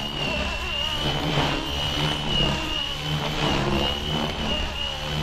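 FlyWing FW450 V3 electric RC helicopter flying: a steady high-pitched motor and rotor whine that wavers slightly in pitch, over a low rotor hum.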